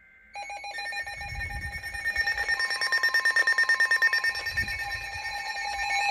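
Several NOAA weather alert radios sounding their alarms together for a severe thunderstorm warning: a tangle of steady and rapidly pulsing electronic beeps that grows louder, with another steady tone joining about two and a half seconds in. A brief data tone from the end of the SAME alert header is heard right at the start.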